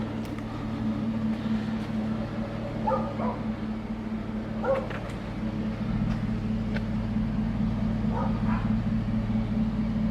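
A dog yelping three times over a steady low hum.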